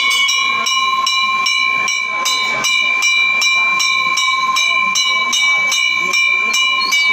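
Temple bell ringing continuously during the puja, struck at a steady rate of about two and a half strokes a second, its tone sustaining between strokes.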